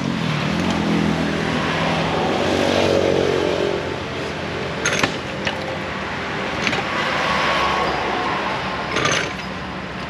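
A motor engine rising in pitch as it speeds up over the first few seconds, then fading into general traffic noise, with a few short sharp clicks later on.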